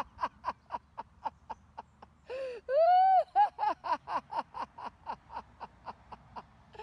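A woman laughing on purpose as a laughter-yoga exercise: quick 'ha-ha-ha' syllables at about four a second, each falling in pitch. About two and a half seconds in they break for one long drawn-out rising and falling 'haaa', then start again.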